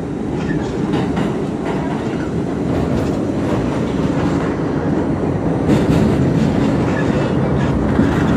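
R68A subway train heard from inside the car as it runs at speed through a tunnel. There is a steady, loud rumble of wheels on rail with scattered clicks, building during the first second and then holding.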